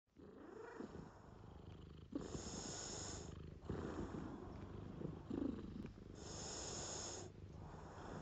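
Domestic tabby-and-white cat purring close up as it is stroked on the head, the purr rising and falling in a repeating cycle about every second and a half.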